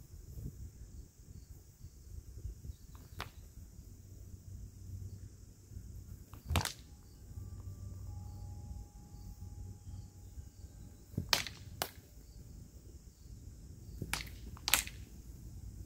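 Practice sabre blades clashing during sparring: about six sharp, separate clacks at uneven intervals, with two quick pairs in the second half.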